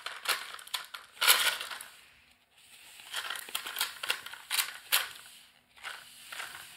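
A paper card crinkling and rustling in a hand, in irregular crackly bursts, loudest about a second in and again past the middle.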